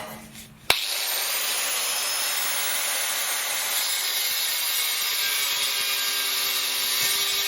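A power tool cutting through steel plate: a steady, hissing cutting noise that starts suddenly just under a second in and cuts off suddenly near the end.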